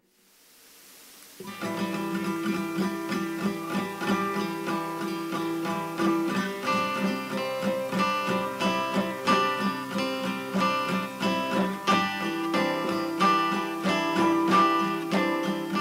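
Music of a strummed acoustic guitar in a steady rhythm, starting about a second and a half in after a moment of near silence.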